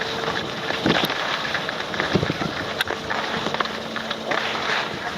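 Skis hissing and scraping over hard, icy snow, with wind rushing on the microphone; the surface is an icy crust left by a lack of snow.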